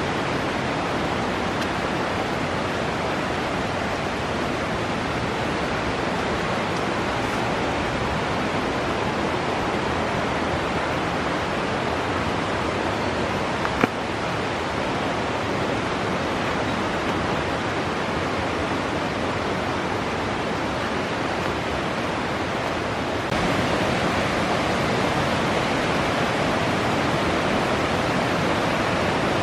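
Steady, loud rush of flowing water, a stream or waterfall running high after a typhoon. A brief click sounds about halfway through, and the rush gets a little louder about 23 seconds in.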